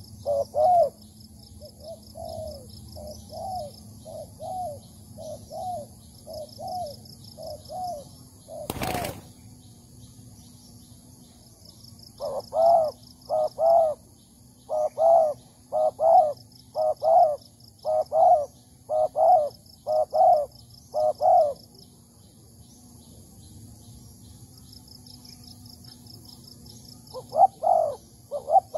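Spotted doves cooing: series of low coo notes about one a second, softer at first and louder in the middle and near the end. A single sharp knock about nine seconds in.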